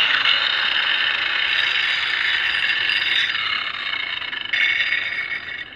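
Drill Master 4-inch angle grinder's spinning disc grinding the steel bevel of a Schrade hatchet: a steady, gritty grinding that fades away near the end.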